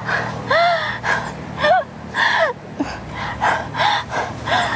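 A woman crying in short sobbing wails, about two a second, each one rising and then falling in pitch, with gasps between them.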